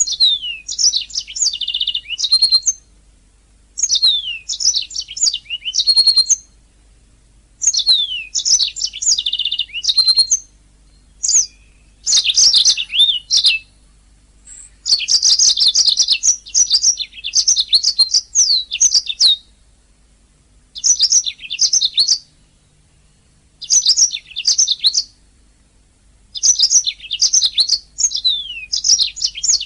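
Domestic canary singing loudly in phrases of rapid chirps, trills and descending notes, each phrase lasting a few seconds with short pauses between.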